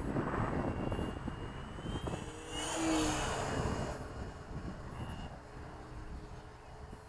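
Foam-board RC airplane's electric motor and propeller whining as it flies past, swelling and sliding up then down in pitch about three seconds in. Wind noise on the microphone in the first second.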